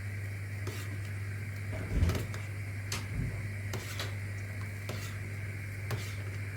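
A spoon stirring a grape molasses and butter mixture in a pan on the stove, clicking lightly against the pan about once a second, with one louder knock about two seconds in, over a steady low hum.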